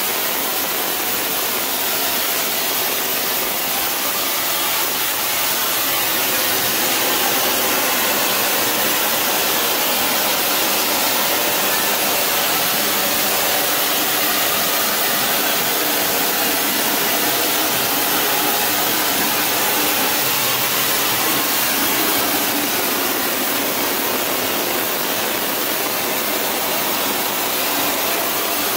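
Gas-fed flame spray gun running with a steady rushing hiss as it sprays zirconia ceramic thermal-barrier coating onto a turbo exhaust manifold through a flame of about 1,640 °C.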